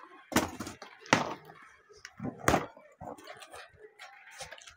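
A cardboard box being opened by hand: a few sharp knocks and scrapes of cardboard flaps, the loudest about halfway through, with rustling of cardboard and plastic wrapping in between.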